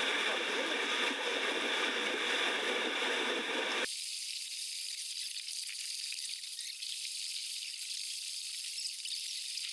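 Shallow water sloshing and churning around dolphins, a steady rushing noise; about four seconds in it cuts abruptly to a thin, high hiss with the low end gone.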